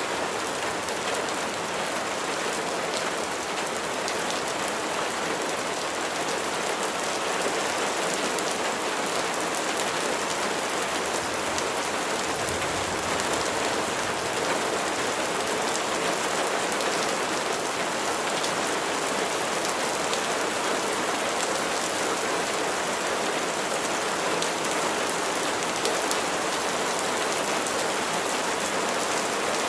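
Steady rain falling: an even, unbroken hiss with a fine patter of individual drops.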